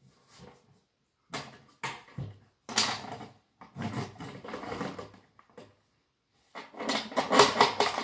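Handling noise: hands pressing and fitting a flexible foil duct on a wooden box lid, giving three irregular spells of rustling with quick clicks, the last the loudest.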